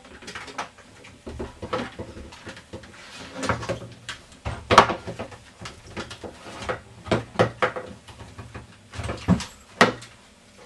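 Rope ladder with wooden rungs knocking against the wall and creaking as someone climbs down it: an irregular series of sharp knocks and thuds, the loudest about halfway through and two more near the end.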